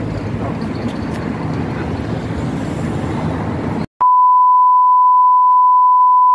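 Steady outdoor background noise that cuts off abruptly about four seconds in, followed by a loud, steady 1 kHz bars-and-tone test tone that stops sharply.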